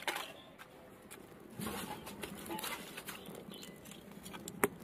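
Faint rustling and crackling of dry leaves and wood sticks in a clay mud stove as it is fed and catches fire, with one sharp click near the end.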